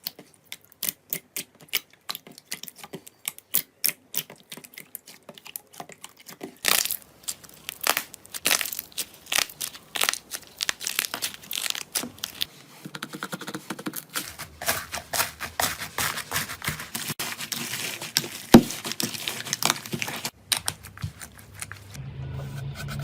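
Slime being worked by hand, giving a quick run of sharp clicks, pops and crackles that becomes a denser, continuous crackle about halfway through.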